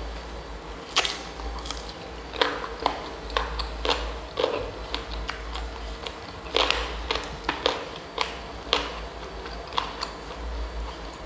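Close-miked eating sounds: irregular sharp mouth clicks and smacks of someone chewing grilled chicken.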